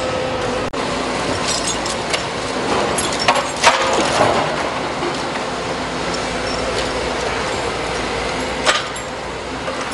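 Liebherr wheeled excavator running steadily with a low hum while broken asphalt and old steel tram rails clank and crack against each other; a pair of sharp knocks a few seconds in and another near the end.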